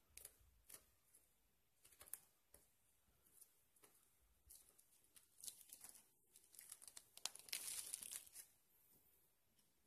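Clear plastic shrink-wrap on a phone box being torn open and peeled off: faint scattered crackles and snaps, with a denser crinkling near the end as the film is pulled away.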